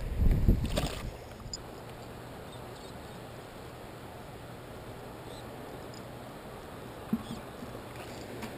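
Low thumps and knocks in the first second as a rope fish stringer is handled and dropped into the river shallows, then a steady even hiss of wind and moving water, with a single click about seven seconds in.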